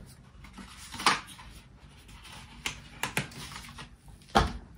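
A few sharp clicks and knocks of a phone's cardboard retail box and its accessories being handled and set down on a desk, the loudest a thump near the end.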